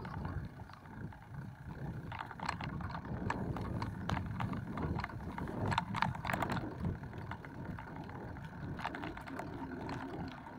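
Bicycle rolling over grass and then dry dirt: a steady tyre rumble with scattered clicks and rattles from the bike.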